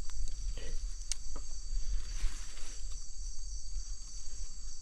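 Steady chorus of night insects such as crickets, a continuous high-pitched trill, with a few faint clicks and rustles of handling.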